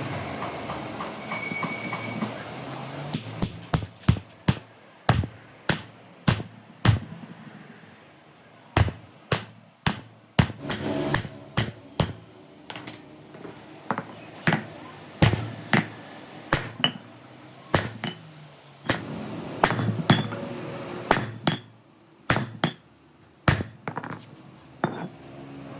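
A hammer striking metal again and again, irregular blows about one or two a second, each with a short metallic ring.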